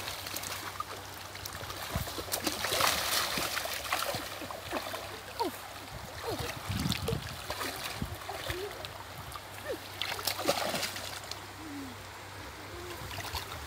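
Splashing and sloshing of shallow muddy water as long wooden sticks are jabbed into a grassy bank, coming in irregular bursts with scattered knocks.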